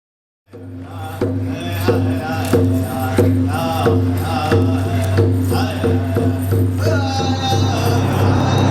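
Opening music fading in: a steady low drone under a regular beat about every two-thirds of a second and a wavering, chant-like melody.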